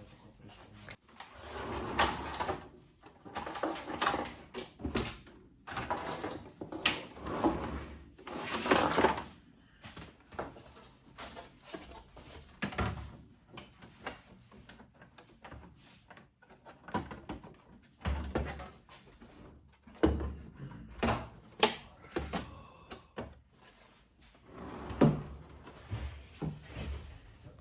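Irregular clicks, knocks and rattles of hard parts being handled and fitted, coming in short clusters with pauses between them.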